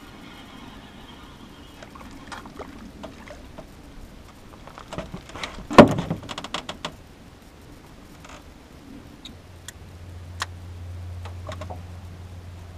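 Knocks and clicks as a crappie is landed into a small aluminium boat: scattered light clicks, one loud knock about six seconds in, then a quick run of small clicks and rattles. A low steady hum comes in near the end.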